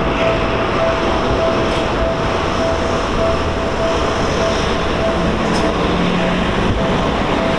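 Japanese railway level-crossing alarm ringing a steady, repeating tone, a little under two rings a second, over the continuous rumble of a Seibu Shinjuku Line electric commuter train running through the crossing.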